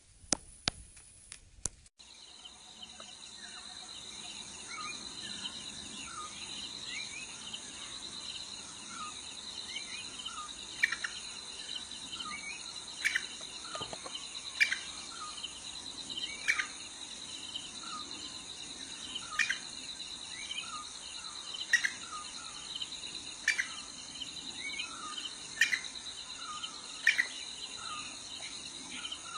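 Steady high-pitched insect trill with many short bird chirps over it and a sharper call repeating every one to two seconds. A few sharp clicks come first, before the trill starts about two seconds in.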